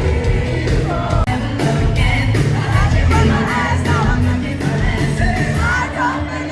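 Live band playing loud pop-rock with a steady drumbeat and a lead singer, with yelling from the crowd in the mix.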